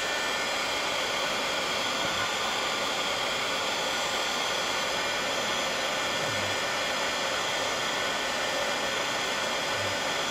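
Embossing heat gun blowing steadily, held over a paper tag to melt clear embossing powder into a glossy coat.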